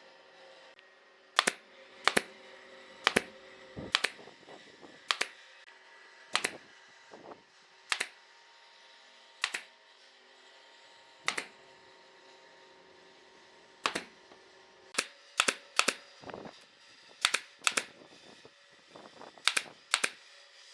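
A series of sharp, irregular knocks or clicks, roughly one a second and sometimes in quick pairs, over a faint steady hum.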